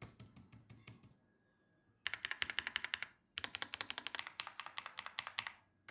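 Typing on computer keyboards. First comes about a second of faint, soft key taps on an Apple keyboard. After a short pause, two runs of much louder, rapid key clicks follow, the second about two seconds long.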